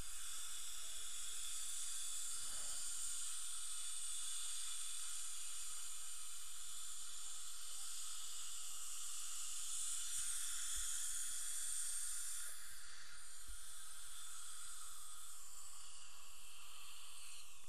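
Steady high hiss, even throughout, its upper part thinning slightly about twelve seconds in.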